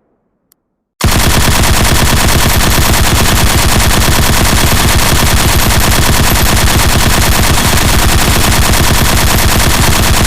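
M60 general-purpose machine gun (7.62×51mm NATO) firing one long full-auto burst of rapid, evenly spaced shots. It starts abruptly about a second in and runs for about nine seconds, stopping at the very end.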